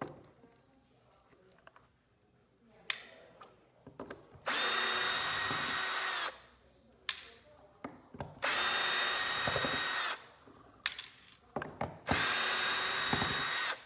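Small cordless electric screwdriver running in three bursts of about two seconds each, driving out the small Torx screws of a speaker housing. Light clicks and handling knocks come between the bursts.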